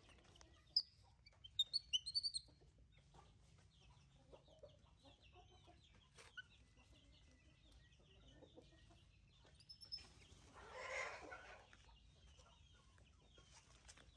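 Chickens clucking faintly. About two seconds in there is a quick run of high, sharp chirps, and about eleven seconds in a brief louder rush of noise.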